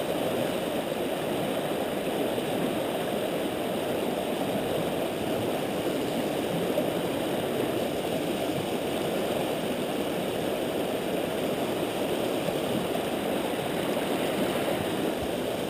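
Fast river current rushing and splashing against a rock right beside the microphone, a steady, unbroken wash of water.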